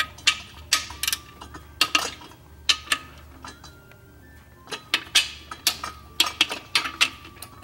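Ratchet head of a click-type torque wrench clicking in short runs of sharp metallic clicks as the main bearing cap bolts are snugged down evenly, with a brief pause in the middle.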